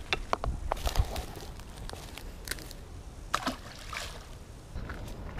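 Light splashing and sloshing of shallow river water, with scattered sharp clicks and knocks.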